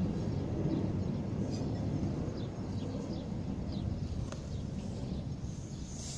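Outdoor background: a steady low rumble with a few faint, short bird chirps scattered through it.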